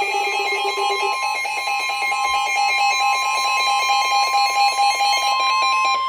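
Several weather alert radios sounding their alarms together for a flood warning: overlapping beeping and warbling alert tones. About a second in, a low warble drops out and a steady alert tone starts.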